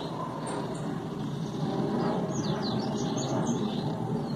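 Songbird chirping in quick runs of high, falling notes from about two seconds in, over a steady low background hum.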